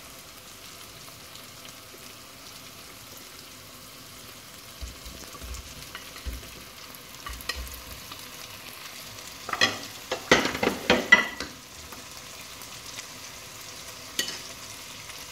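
Curry paste and vegetables sizzling steadily in a saucepan on high heat, while a wooden spatula scrapes vegetables off a plate into the pot and stirs. A cluster of sharp knocks and scrapes about ten seconds in is the loudest part, with one more knock near the end.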